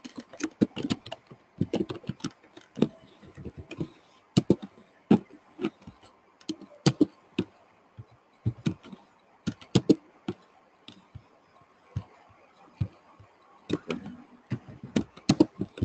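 Typing on a computer keyboard: irregular runs of sharp keystrokes with short pauses between them.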